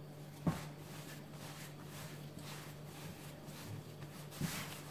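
Soft yeast dough being kneaded by hand on a floured countertop: two soft thumps, about half a second in and near the end, as the dough is pressed down, with faint rubbing of hands on dough between them. A low steady hum sits underneath.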